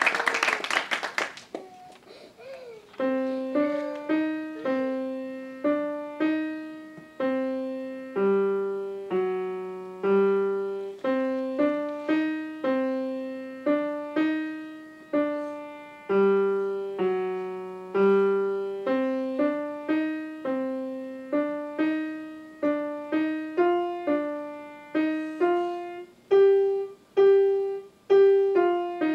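Applause dies away in the first second or so. Then a grand piano plays a simple early-level student piece, slow even notes struck one or two at a time, each left to ring and fade.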